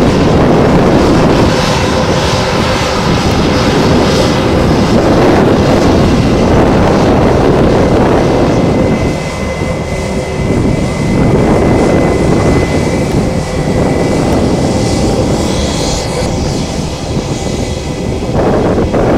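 Aircraft engines: a loud, steady rush with a thin high whine running through the later part.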